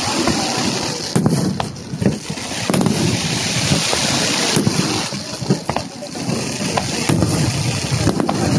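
Aerial firework shells bursting, a string of sharp bangs about one every second or two with crackle between them, over a steady rushing background noise.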